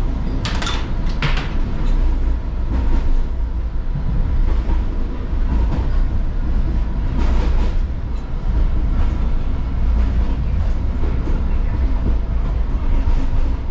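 Inside a moving light-rail car: a steady low rumble of the wheels on the track, with a few brief sharp clatters about half a second and a second in, and again about seven seconds in.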